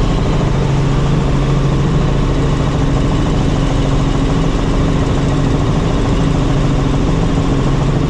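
Helicopter in flight: a loud, steady drone of engine and rotors with a constant low hum.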